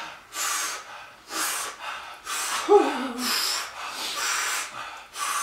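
Heavy breathing through open mouths, about one loud airy breath a second, from people whose mouths are burning from very hot sauce. A short groan falling in pitch a little under three seconds in.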